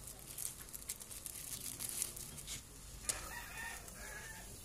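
A rooster crowing once, about three seconds in, over light crackling from a wood cooking fire and coconut milk simmering in a wok.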